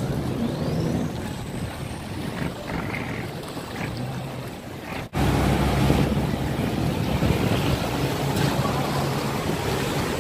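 A large river barge's engine running steadily as it pushes into a sluice gate, with water rushing and churning around the hull. About halfway through, the sound drops out for an instant and comes back louder, the engine hum stronger.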